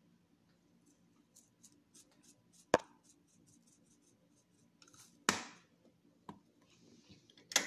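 Dried oregano being shaken out of a spice shaker bottle over a glass bowl: a run of quick light ticks, broken by a few sharp knocks, the loudest a little under three seconds in.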